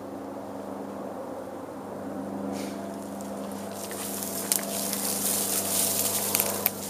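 Footsteps crunching through dry leaves and twigs, with dry brush rustling, louder and crackling from about four seconds in. A steady low hum runs underneath.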